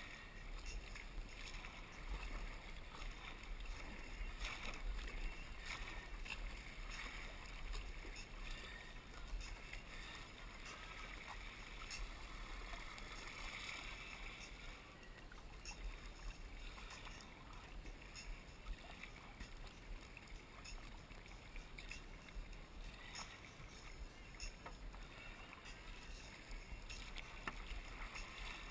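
Kayak paddle strokes: the blades dipping into and splashing out of the water, with water washing along the hull, over a constant low rumble.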